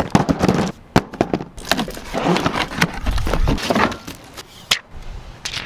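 Cardboard box and foam packing being handled as a countertop oven is unboxed: rustling and scraping of cardboard with several sharp knocks and crackles.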